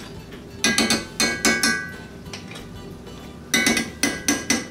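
A metal knife clinking and tapping against a plate as pats of butter are cut and scooped off, in two quick runs of sharp clinks with a short ring, about half a second in and again near the end.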